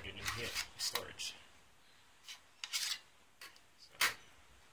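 Folded keyboard being slid out of its white cardboard sleeve, rubbing and scraping in short strokes, with a single sharp knock about four seconds in.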